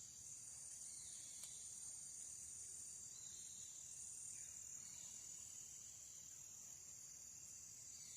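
Faint steady high-pitched chorus of insects in flooded tropical forest, with a few falling whistle-like calls now and then and a faint click about a second and a half in.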